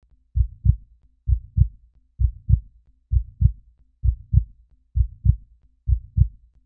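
Heartbeat: slow, steady low double thumps (lub-dub), seven beats at a little under one a second.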